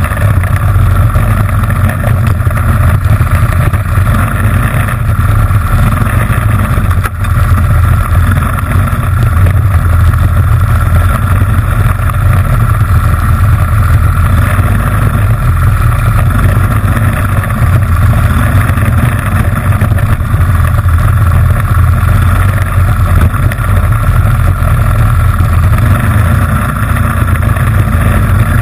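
Racing kart's Honda GX160 single-cylinder four-stroke engine running hard under throttle, loud and steady, with a brief dip about seven seconds in.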